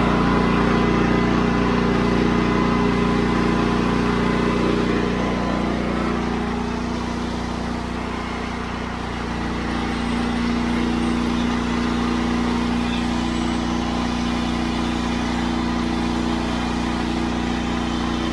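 Honda IGX800 EFI V-twin engine running steadily while driving a pressure-washer pump. The level dips slightly and the upper tones shift for a few seconds starting about six seconds in. Under load it holds its speed rather than bogging down, so the failing-ignition-coil fault is not showing.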